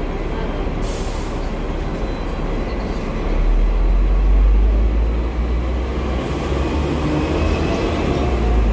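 Hong Kong double-decker tram heard from its upper deck: a steady rumble, a brief hiss about a second in, then a deeper, louder rumble that starts about three seconds in as the tram pulls away on a green signal.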